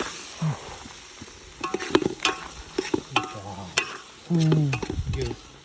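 Food frying in a pan while being stirred, with a faint sizzle and several sharp knocks of the spoon against the pan.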